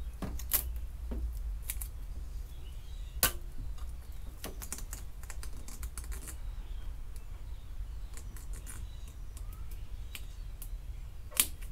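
Scattered light clicks and taps from vinyl pinstripe tape being handled and pressed onto a car door by hand, the sharpest about half a second in, about three seconds in and near the end, over a low steady hum.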